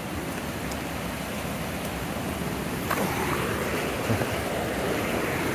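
Rushing mountain stream, a steady wash of water noise, with a short knock about three seconds in.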